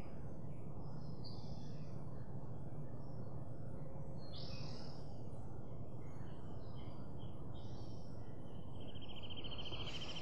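Outdoor ambience: a steady low rumble of background noise with scattered bird chirps and calls. Near the end there is a fast, rapid trill lasting about a second.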